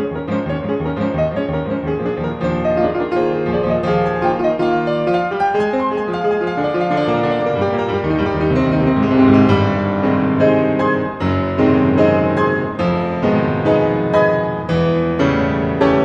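Background piano music, a steady flow of notes.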